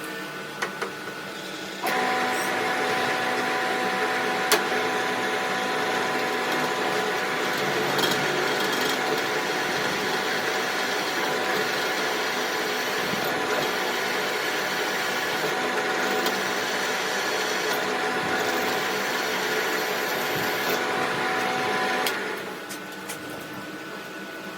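An electric workshop machine tool running steadily with a constant hum, starting abruptly about two seconds in and stopping near the end.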